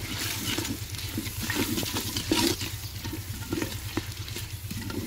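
Wooden spoon stirring and scraping a thick masala of onion, tomato and spices frying in a clay pot, with irregular knocks of the spoon against the pot and a soft sizzle.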